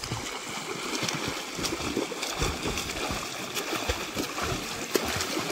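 Boys splashing and swimming in a shallow stream: irregular splashes of water over the steady rush of the flowing stream.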